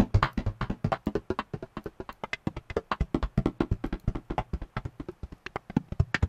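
Clicky percussive texture sample playing back on its own: a dense, uneven patter of short clicks and taps, around ten a second, with swing applied.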